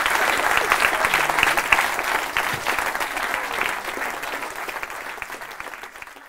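Audience applauding, a dense patter of many hands clapping that fades out gradually over the last few seconds.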